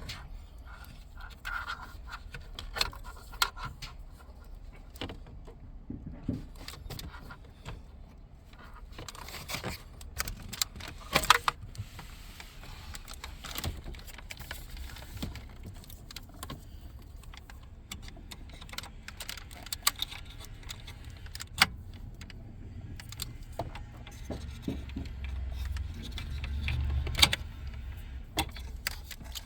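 Scattered plastic clicks, taps and rattles as wiring-harness connectors are released and unplugged from the back of a pickup's factory dash radio assembly, with a cluster of louder clicks about eleven seconds in.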